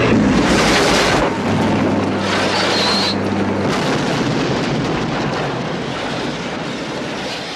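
Film sound effects: a propeller plane's engine drones under a long, rumbling explosion blast. The engine drone stops about halfway, and the rumble slowly dies away.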